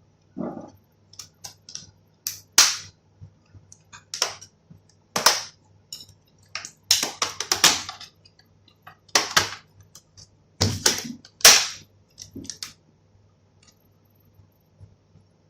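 Plastic back cover of an HP x360 laptop being pried off: its retaining clips snap loose one after another in a series of sharp clicks and cracks, some much louder than others.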